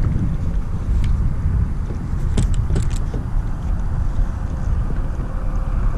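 Wind buffeting the action camera's microphone as a steady low rumble, with a few sharp clicks about two and a half seconds in.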